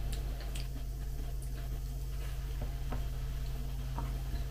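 Eating from a bowl with a spoon: a few faint spoon clicks and soft mouth sounds from chewing cereal flakes softened in kefir, over a steady low hum.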